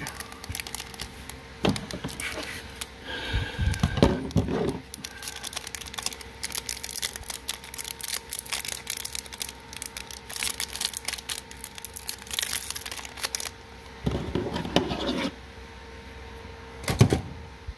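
Foil wrapper of a Magic: The Gathering collector booster pack crinkling and tearing as it is peeled open by hand, with many small crackles and a few louder rustling spells. A single sharp knock comes near the end.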